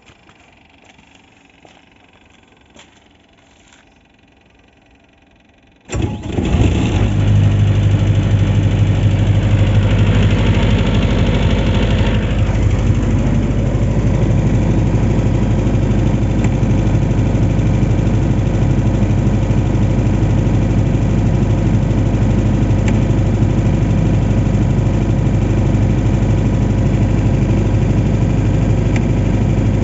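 Atlas Copco QAS 40 diesel generator's Kubota V3800 four-cylinder diesel engine starting about six seconds in: it catches at once and runs on with a steady low hum. Before the start there are only a few faint clicks.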